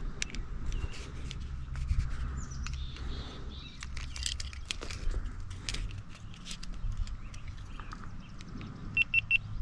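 Clicks, taps and rustling from an action camera and its mini tripod mount being handled and adjusted, with a low rumble of handling noise. Near the end the camera gives three short high beeps in quick succession.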